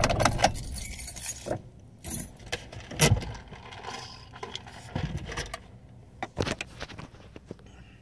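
Close handling noises inside a car: jangling rattles and sharp clicks that come and go irregularly, the loudest about three seconds in, over a low steady hum.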